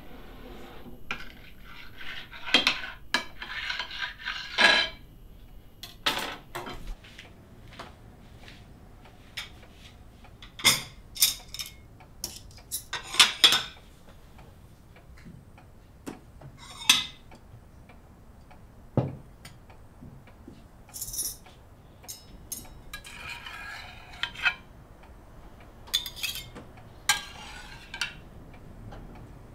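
Dishes and cutlery clinking at a dining table: plates set down and a fork tapping and scraping on a glass dessert plate, in irregular clinks and knocks.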